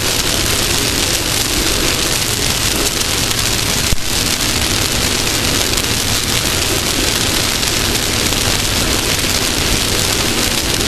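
Off-road race car running at speed: a steady, dense rush of engine, wind and dirt noise, with a single knock about four seconds in.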